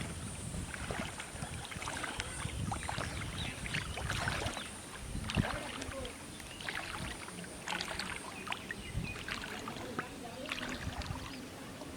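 Small irregular water splashes and drips, a busy scatter of short sloshing sounds over a low rumble.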